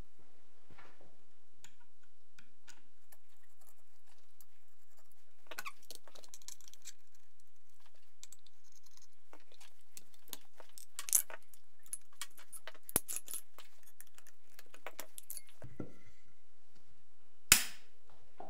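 Metal clicks, scrapes and clacks of an AK-105 rifle being taken apart by hand to swap its dust cover for a rear sight rail. A few sharp metallic clacks stand out, the loudest near the end.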